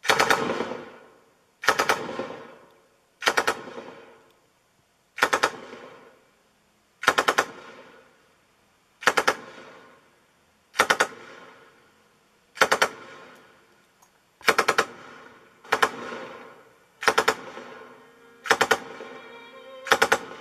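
A sharp percussive burst of rapid clatter, repeated about a dozen times roughly every one and a half to two seconds, a little faster near the end, each ringing away before the next. It is played back through Victor three-way bookshelf loudspeakers.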